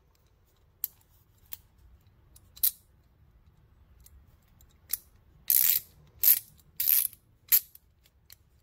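Pass-through ratchet being worked by hand: a few scattered metallic clicks, then four short, louder rasps of the ratchet mechanism in the second half. The ratchet is very tight in reverse, stopping after about half a turn.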